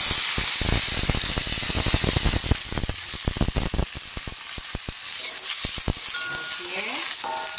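Angled luffa slices sizzling in a hot aluminium wok, the sizzle jumping up at the start as a little water goes in. A metal spatula scrapes and knocks against the wok as it stir-fries.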